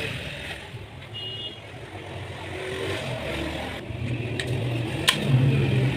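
A motor vehicle engine running, getting louder over the last few seconds, with a few sharp clicks over it.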